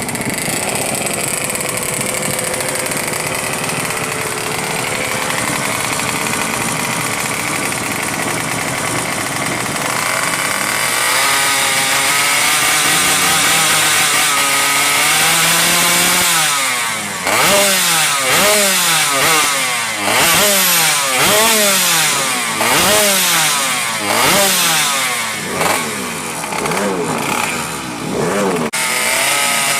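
Modified two-stroke Yamaha Alfa motorcycle engine, bored out to 116 cc and fitted with a 35 mm carburettor, running steadily. From about halfway it is revved in quick throttle blips, each a rising then falling whine, about once a second.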